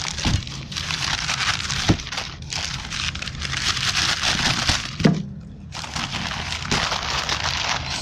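Crumpled brown kraft packing paper crackling and rustling as a hand pulls and pushes it about inside a cardboard box, with a couple of light knocks and a brief pause about five seconds in.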